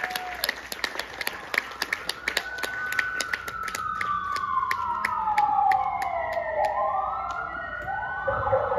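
Electronic sound effect played over the show's sound system: fast, evenly spaced ticking that gradually slows, under a siren-like tone that slides slowly downward. Near the end it breaks into rising sweeps and settles into a steady held tone.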